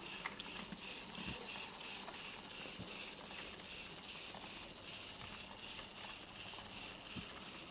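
Fleischmann model steam locomotive running along model railway track: a faint whirring of its motor and gearing that pulses regularly about three times a second, with a few light clicks from the wheels on the rails.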